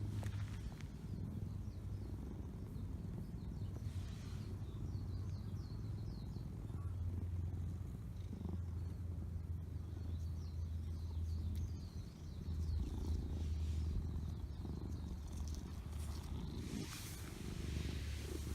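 Domestic cat purring steadily in a low, continuous rumble, with a few short breaks.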